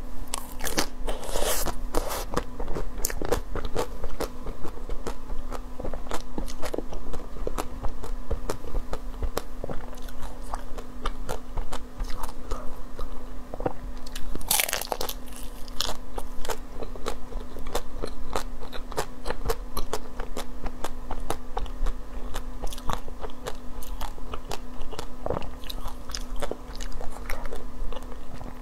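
Biting and chewing chocolate-coated ice cream cakes: the hard chocolate shell cracks and crunches in a steady run of small sharp cracks, with bigger crunching bites about a second in and again around halfway.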